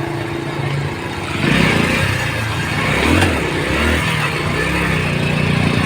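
A motor vehicle engine running, growing louder about a second and a half in, then rising and falling in pitch.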